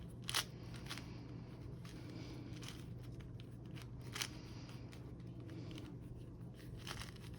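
Plastic Rubik's cube being twisted by hand: a few sharp clicks of the layers turning and snapping into place, about half a second in, around four seconds in and near the end, over a steady low hum.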